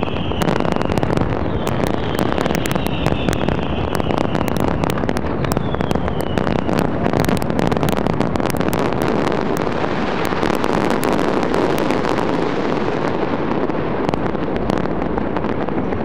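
A dense fireworks barrage: rapid, overlapping bangs and crackling merging into a continuous loud din. A few falling whistles sound through it in the first seven seconds.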